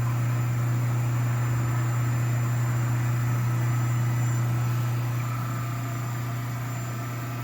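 10 horsepower rotary phase converter running with a steady low electric hum.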